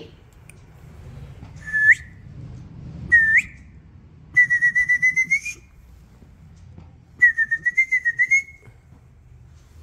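A person whistling, four high whistles: two short upward ones, then two longer ones that flutter rapidly.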